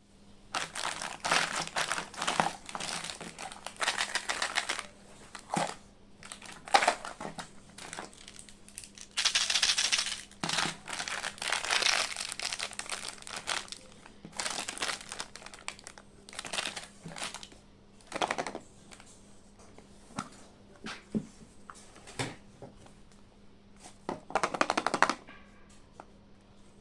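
Packaging being crinkled and torn open by hand: irregular rustling bursts, some loud, that die away near the end.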